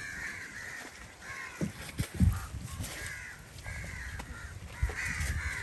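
Crows cawing over and over, many harsh calls overlapping, with a few dull low thumps, the loudest about two seconds in.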